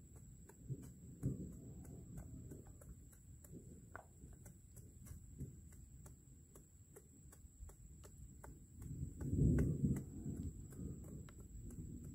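Wind gusting across an outdoor microphone, as low irregular rumbles, the strongest about nine to ten seconds in. A faint fast, even ticking and a steady thin high whine run underneath.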